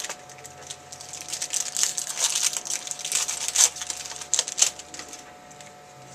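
Foil card-pack wrappers crinkling and trading cards being handled, a busy run of sharp rustles and clicks that thins out near the end.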